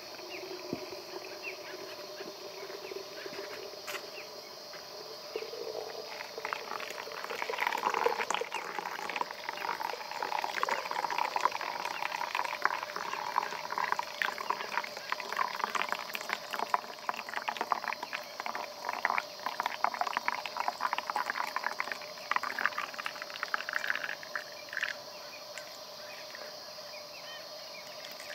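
Wild animal calls: a dense chattering chorus that builds about a quarter of the way in and dies away near the end.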